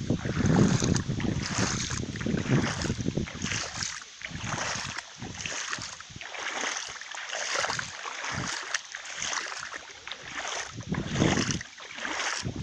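Gusty wind buffeting the microphone: an irregular rushing noise that swells and drops every second or two, strongest at the start and again near the end.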